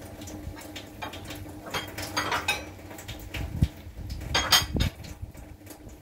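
Pots and kitchen utensils clattering and clinking as they are handled, with a few louder knocks about three and a half and four and a half seconds in, over a faint steady hum.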